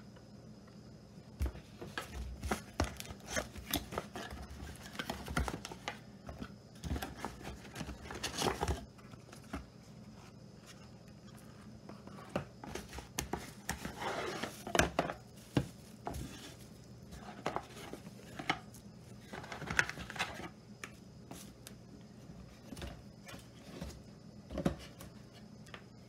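Cardboard product box being opened and unpacked by hand: flaps and inner pieces scraping and sliding out, plastic wrapping rustling, and items set down on a table with light knocks, in irregular bursts throughout.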